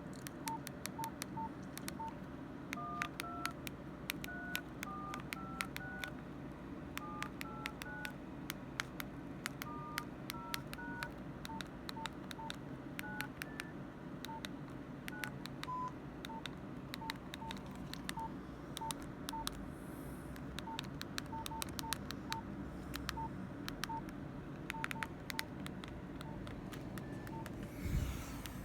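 Nokia 105 (2013) keypad being pressed: sharp plastic key clicks, each key giving a short beep. In the first half a run of two-note dialling tones sounds as digits are keyed in.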